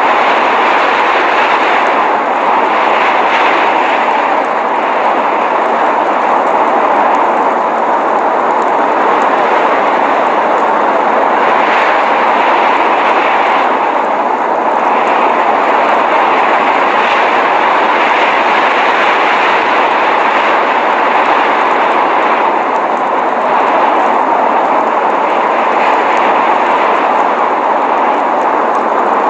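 Steady, dense rushing noise of blizzard wind, strongest in the middle range, with no breaks or separate events.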